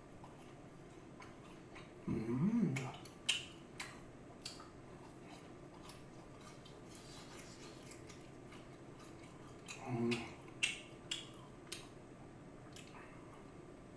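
Close-up eating sounds of fried chicken being chewed: scattered sharp crunchy clicks and mouth smacks, with two short hummed voice sounds, one about two seconds in and one near ten seconds.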